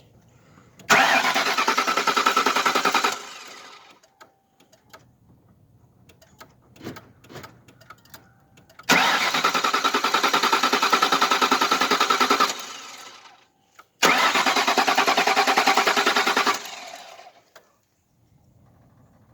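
Starter cranking a 2001 Lincoln Town Car's 4.6-litre V8 in three tries, the second one the longest, the engine turning over with a quick even pulsing but never catching. It is a no-start that the owner has a feeling is the fuel pump.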